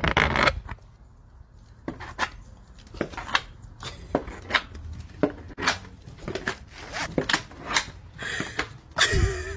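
Irregular knocks and scrapes of a dog in a clear plastic cone collar climbing stairs, the cone bumping and catching on the steps. A loud cluster of knocks and rubbing comes at the start and again near the end.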